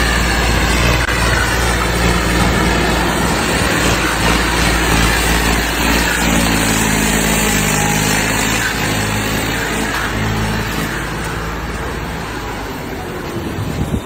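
A heavy vehicle engine running loudly and steadily, its pitch shifting in steps now and then.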